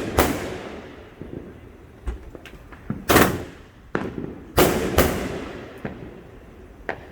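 Consumer fireworks going off: loud bangs just after the start, about three seconds in, and a close pair near five seconds, each trailing off in a long fading rumble, with smaller cracks scattered between.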